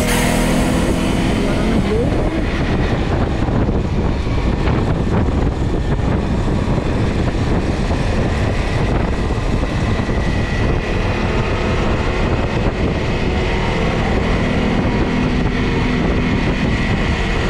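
Steady vehicle noise: a dense, even rumble with engine sound mixed into it, unchanging throughout.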